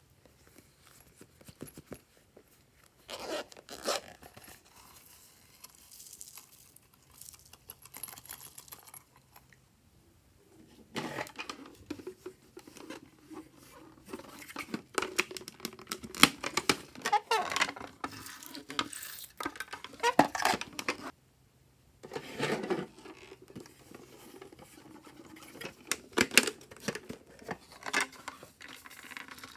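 Glossy slime being squished, stretched and folded by hand, giving irregular sticky crackles and little pops, with a brief pause about two-thirds of the way through.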